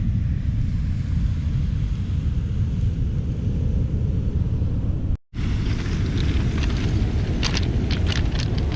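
Steady low rumble of wind and surf on a stone beach, cut off for an instant about five seconds in. Near the end, irregular crunching steps on beach pebbles.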